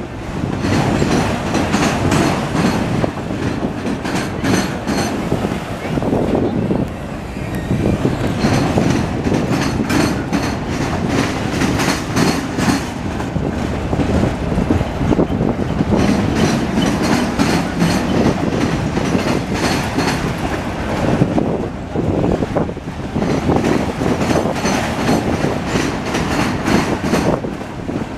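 Freight train of auto rack cars rolling past, a steady rumble with a rhythmic clickety-clack of wheels over the rail joints.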